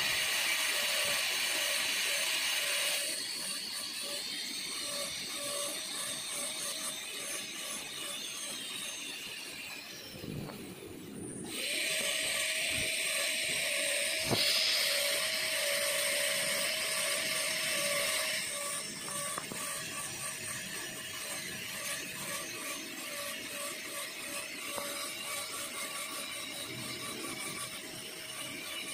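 High-speed air-turbine dental handpiece running with a steady high whine as its bur grinds down the lingual cusps of a plastic typodont molar, reducing the biting surface for a full metal crown. It gets louder and quieter in stretches, stops for about a second and a half around ten seconds in, then starts again.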